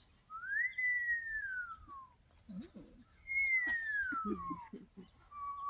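A person whistling an imitation of an eastern screech owl's whinny call: two falling whistles, each rising briefly and then sliding down, followed near the end by the start of a steady held note.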